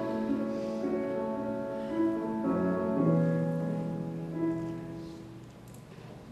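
Slow instrumental background music with long held notes, fading out over the last couple of seconds.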